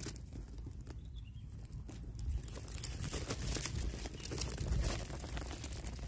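Dry grass stems and leaves rustling and crackling close to the microphone as the grass around a small bird's nest is handled, over a low rumble. The crackling gets denser and louder about two seconds in.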